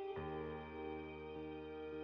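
Soft background music of slow, held chords, with a new chord coming in just after the start.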